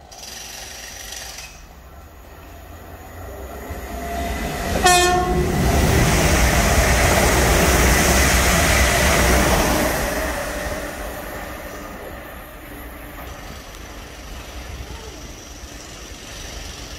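An EMR Connect Class 360 electric multiple unit sounds a short two-note horn about four seconds in, then runs through at speed with a loud rush of wheels on rail and air that peaks for several seconds and fades away. A quieter, steady rumble of another approaching train follows near the end.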